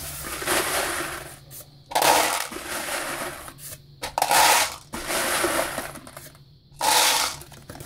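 Handfuls of 9mm copper-plated round-nose bullets poured into a tray, clinking and rattling against one another, in about five separate pours.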